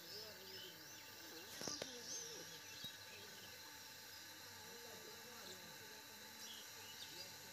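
Faint outdoor ambience with scattered small bird chirps and a brief knock about two seconds in.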